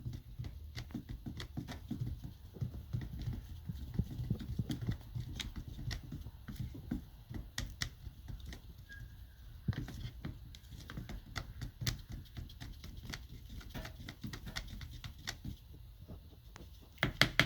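Fiberglass resin and hardener being stirred in a bowl, the stirrer knocking against the bowl in irregular clicks and taps, with a brief flurry of louder clicks near the end.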